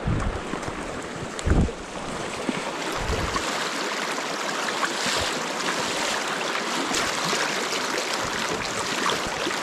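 Steady rush of a fast, shallow freestone stream running over riffles, with wind buffeting the microphone in a few low thumps during the first few seconds. Toward the end, a wader's legs slosh through the current close by.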